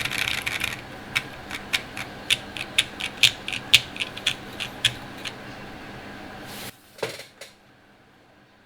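Salvation mechanical keyboard with an FR4 plate, lubed and filmed Zealios V2 tactile switches and CRP C64 keycaps being typed on: a fast run of keystrokes, then separate slower keystrokes for about four seconds. A couple of louder knocks come near seven seconds, after which only faint hiss remains.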